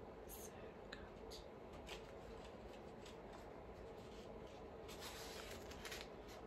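Faint rustling and a few light clicks of small objects being handled on a table, over a steady low room hum; the rustling is a little louder about five seconds in.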